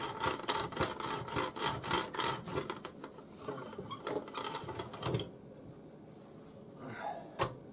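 A rolling pin rolling out egg-noodle dough on a floured counter: a quick run of rubbing strokes for about three seconds, then quieter, with one sharp knock near the end.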